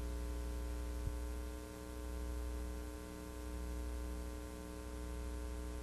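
Steady electrical mains hum with a buzzy stack of overtones and a faint hiss, swelling and fading slightly; a small click about a second in.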